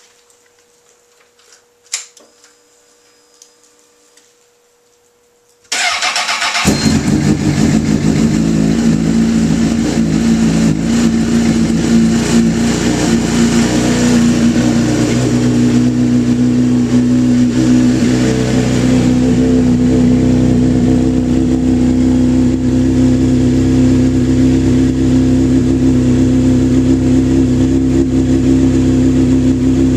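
A 2004 Honda CBR1000RR's inline-four engine through a Jardine RT-1 aftermarket exhaust: after a faint click about two seconds in, the starter cranks briefly at about six seconds and the engine fires. It runs with its pitch shifting for several seconds, then settles into a steady idle.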